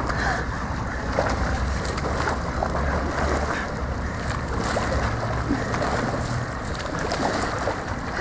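Water sloshing and lapping as people move and struggle through a shallow pool, over a steady low rumble.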